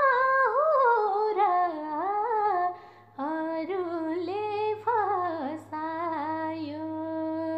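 A woman singing a Nepali song melody solo, the pitch sliding and ornamented through each phrase. She pauses briefly for breath about three seconds in and ends on a long held note.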